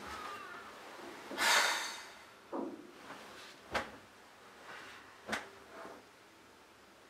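A man's exasperated breathing as he shifts in bed, with a loud, long breath out about one and a half seconds in and a few short, sharp knocks or thumps after it.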